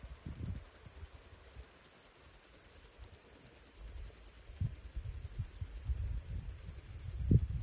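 Low rumbling and thudding of wind and handling on a handheld camera's microphone while walking, with a louder thump near the end. A fast, even, high-pitched pulsing, about eight a second, runs all through.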